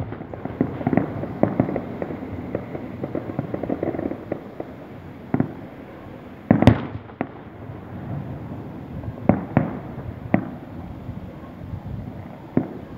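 Fireworks going off: a dense run of crackling bangs for the first few seconds, then scattered single bangs, the loudest about halfway through.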